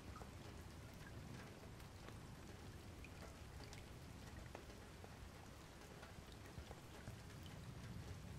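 Near silence: faint outdoor ambience, a low steady hiss and rumble with scattered soft ticks.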